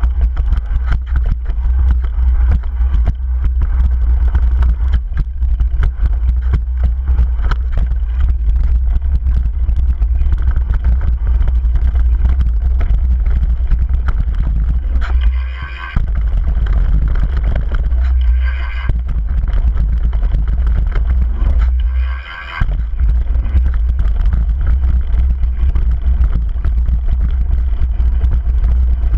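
Wind buffeting the microphone of a camera riding on a downhill mountain bike, over the rattle and clatter of the bike and its tyres on a rough dirt trail. The low rumble drops away briefly twice, about halfway through and again a few seconds later.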